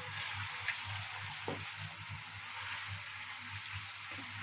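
Garlic-ginger paste frying in hot oil in a steel karahi: a steady sizzling hiss, with a couple of faint knocks as a wooden spatula stirs it.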